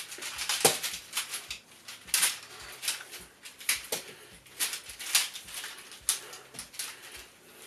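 Manfrotto Compact Action tripod's leg locks snapping open and its telescoping legs being pulled out, giving a string of irregular sharp clicks; the loudest comes about a second in.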